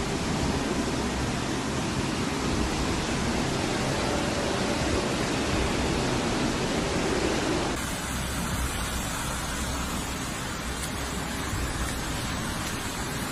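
Muddy floodwater rushing in a torrent, a steady dense rushing noise; about eight seconds in it switches abruptly to another flash flood's rushing water, a little quieter.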